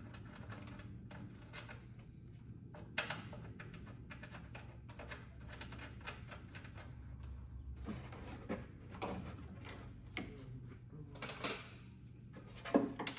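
Automotive wiring harness being handled and fitted into a truck cab: scattered clicks, taps and rustles of wire loom and plastic retaining clips, with a sharper tick about three seconds in and louder clicks near the end. A steady low hum runs beneath.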